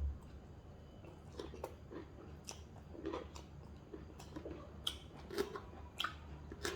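A person eating and chewing food close to the microphone: irregular soft smacks and small clicks, about one every half second to a second.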